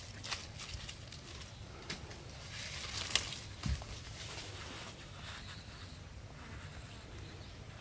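Footsteps and rustling through dry leaves and brush as someone walks down over rock, with scattered crackles and a dull thump about three and a half seconds in.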